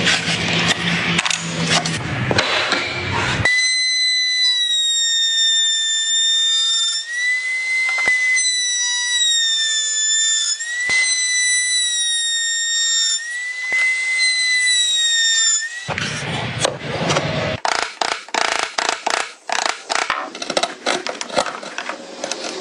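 Woodworking sounds: about three seconds of rough sawing or rasping on wood, then a steady high whistling tone with small pitch wobbles lasting about twelve seconds, then a fast run of sharp knocks like hammering on wood.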